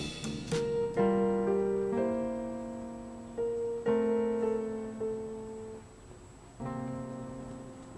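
Background music: slow piano chords, each struck and left to ring and fade, with a quieter pause shortly before the last chord near the end.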